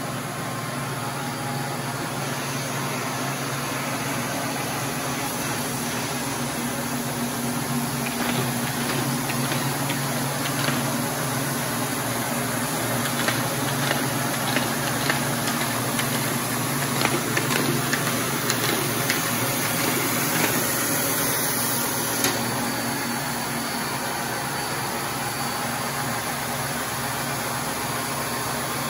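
Paper folding machine running, its motor and air pump humming steadily, with a scatter of light clicks and ticks from the feed and folding mechanism in the middle of the stretch.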